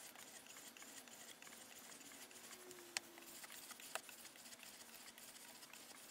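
Faint scratching of a 600-grit stone drawn in full strokes along a knife edge on a TSPROF guided-angle sharpener, with two light clicks about three and four seconds in.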